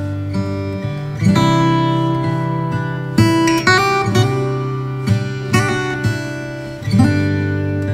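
Background music: an acoustic guitar strumming chords, each strum ringing out before the next chord change.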